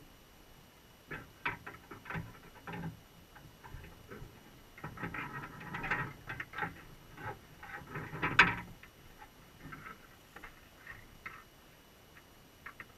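Irregular clicks, scrapes and crackles heard underwater as Dungeness crabs clamber over the wire mesh and bait cage of a crab trap; the loudest scrape comes a little past the middle.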